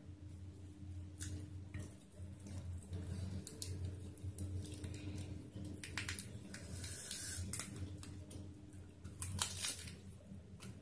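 Fresh lettuce leaf crinkling and rustling as it is folded by hand around rice, with small clicks, then bitten near the end; a steady low hum runs underneath.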